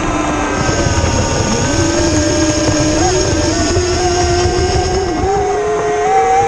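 Electric RC speedboat running hard on the water. Its brushless motor gives a high whine whose pitch keeps shifting up and down with the throttle, over a rushing noise.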